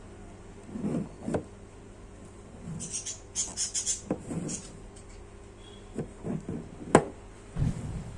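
Fingers handling a shrink-wrapped cardboard smartwatch box: scattered soft taps and knocks on the box, crisp scratching of the plastic wrap about three to four seconds in, one sharp tap about seven seconds in, and a low thump near the end.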